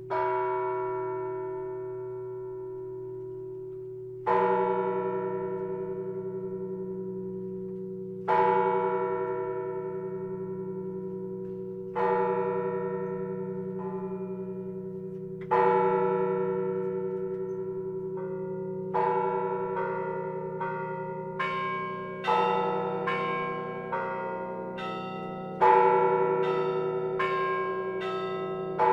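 Church bells ringing: one bell struck slowly, about once every four seconds, each stroke ringing on and fading. About nineteen seconds in, several bells of different pitch join with quicker, overlapping strikes.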